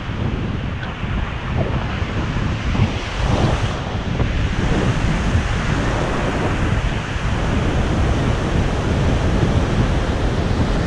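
Shallow surf washing in and out over a sandy beach, with wind buffeting the microphone.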